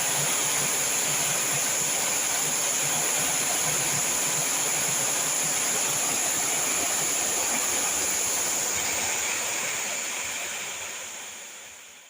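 Heavy rain pouring in strong wind, a steady rushing that fades out near the end.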